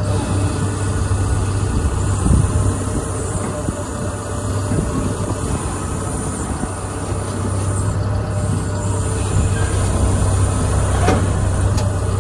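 Excavator's diesel engine running steadily with a deep hum while the bucket is held still, with one brief click near the end.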